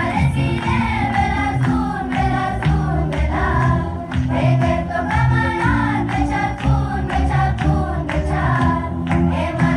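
Music: a song with sung vocals over held bass notes.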